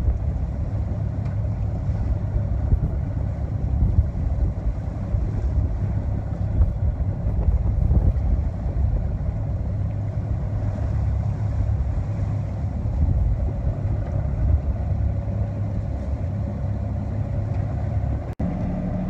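Wind and sea noise aboard a sailing yacht underway in a light chop: a steady low rumble of wind and water rushing past the hull. The sound drops out for an instant near the end.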